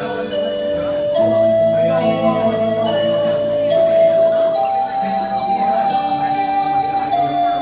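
Live band playing a song's instrumental intro: a slow melody of long held notes over sustained chords and bass, without vocals.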